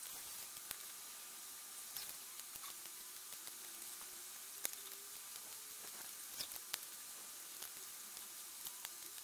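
Scattered light clicks and taps of small laser-cut MDF wheel parts being handled, set down and pressed together by hand, one sharper click near the middle, over a steady faint hiss.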